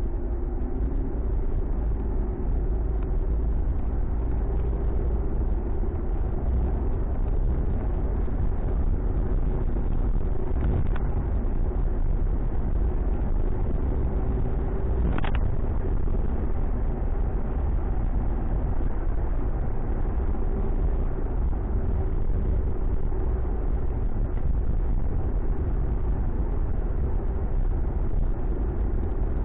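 Steady engine and road noise inside a Ford Mustang's cabin while it cruises on a highway, with a faint steady hum. There is a light click about halfway through.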